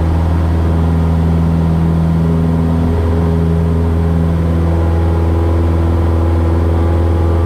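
Cessna 172S's four-cylinder Lycoming IO-360 engine and propeller running at full takeoff power in the cabin right after rotation, a steady, loud drone through the initial climb.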